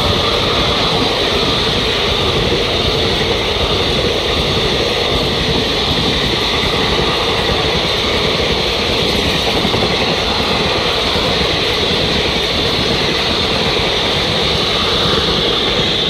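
Passenger coaches of an express train running through a station at speed without stopping: a steady, loud rush of wheels on rails.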